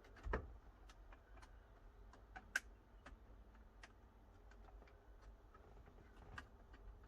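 Faint, irregular small clicks and taps of hands working at the car's steering wheel, freeing a plastic wiring connector, with a soft thump about a third of a second in and a sharper click around two and a half seconds in.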